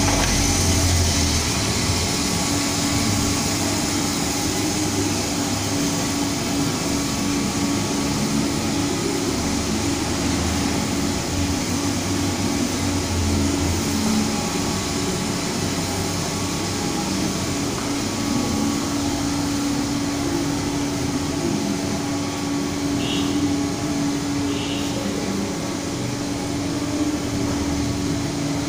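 Drum coffee roaster running: a steady machine whirr with a low, even hum.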